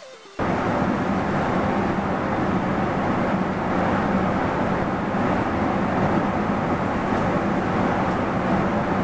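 Loud steady rushing noise of a commercial kitchen gas range, its burner running under a large steaming stockpot of soup. It starts abruptly about half a second in.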